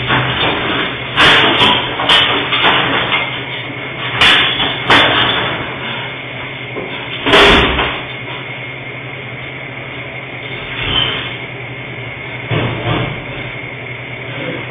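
A locked shop's glass door and its security grille being banged and rattled hard from inside: five heavy blows in the first eight seconds, then a few fainter knocks, with a steady electrical hum underneath. It is the sound of someone locked in, trying to force the door open.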